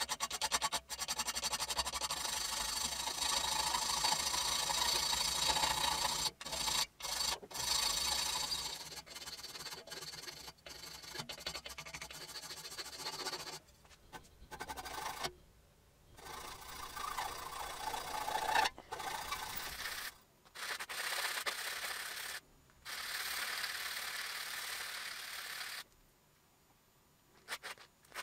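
Hand file worked back and forth across a small aluminium exhaust manifold clamped in a vise, in long runs of quick scraping strokes. The strokes stop briefly a few times, with a longer pause near the end.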